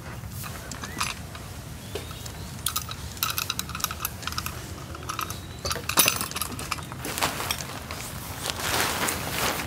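Camping gear being packed away by hand: light metallic clinks and rattles, a quick run of ringing clinks about three seconds in, a sharp knock about six seconds in, then rustling near the end.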